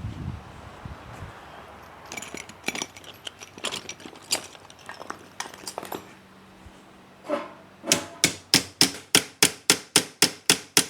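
Small hammer tapping a part the rest of the way into a car seat gearbox: scattered light knocks and clicks of handling, then a quick run of about a dozen sharp metal taps, about four a second, in the last three seconds.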